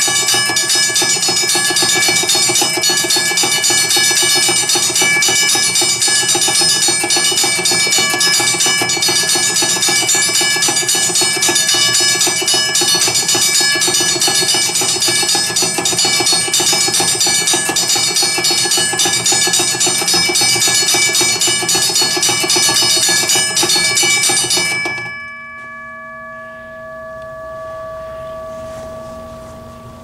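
WABCO BA-10 mechanical railroad crossing bell ringing in rapid strikes, its striker driven by a rotary solenoid as fast as the solenoid and contacts can switch: much faster than the bell's intended rate. About 25 seconds in the striking stops and the bell's tone rings on and fades.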